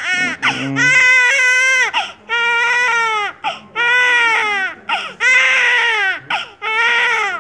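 Newborn baby crying its first cries after birth: a string of loud wails about a second long each, broken by quick catches of breath, each wail falling in pitch at its end.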